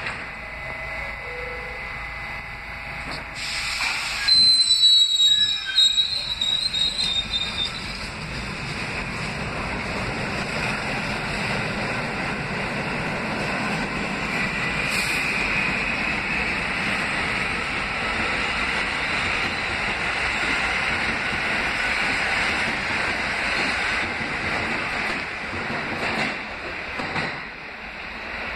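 Kawasaki R68A subway train pulling out of the station. A burst of hiss and a loud, high squeal come about four seconds in, then the steady running noise of the cars on the rails builds and drops off near the end.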